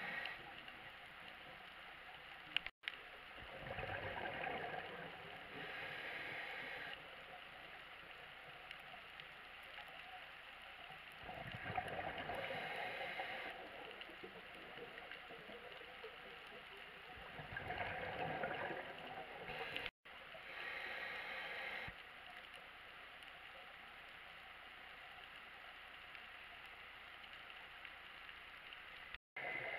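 Scuba diver breathing through a regulator underwater: bursts of exhaled bubbles gurgling alternate with the hiss of inhaling, about three breaths in all. The sound cuts out briefly three times.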